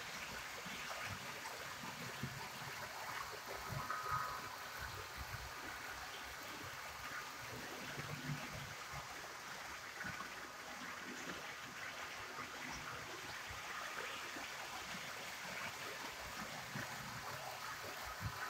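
HO scale model trains running on the layout's track: a steady rumble of wheels rolling over the rails with motor hum, ticking at the rail joints, and a few faint, brief high tones.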